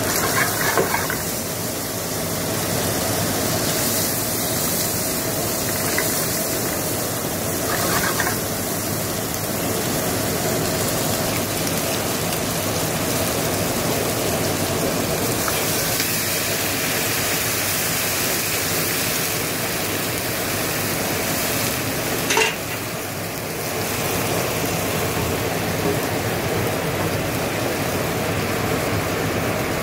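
Diced pork sizzling and spitting in hot fat in a frying pan, with a few sharp knocks of a utensil against the pan. About 22 s in there is a loud knock, and the sizzle gives way to a rolling bubbling as liquid boils in the pan.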